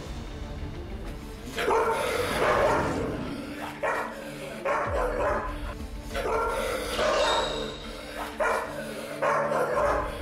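Golden retriever barking aggressively in a string of loud barks about a second apart, starting about one and a half seconds in. The dog is resisting having a muzzle put on.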